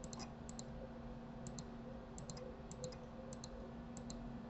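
Computer mouse button clicking: about seven quick press-and-release double clicks, spaced roughly half a second to a second apart.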